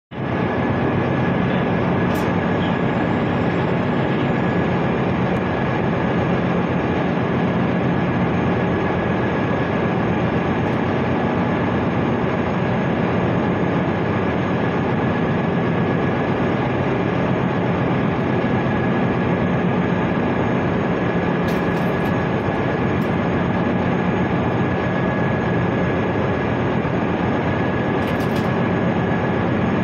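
Steady, loud drone of a ship's machinery: a dense hiss over a low hum, with a thin steady high whine.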